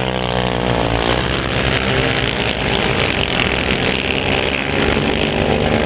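Several sport quad bikes racing on a dirt speedway track, their engines running hard. The engine notes rise and fall, overlapping, as the pack passes through the bend.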